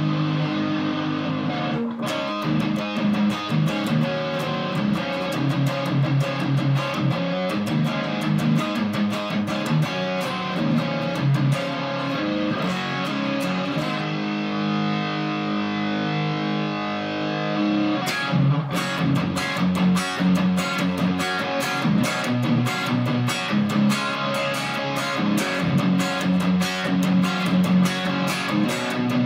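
Electric guitar played through a Black Cat Overdrive clone pedal in high-gain mode with the gain cranked, into a Fender Supersonic tube amp: heavily distorted playing. Held chords ring at the start and again about halfway through, with fast picked runs and riffs between them and through the second half.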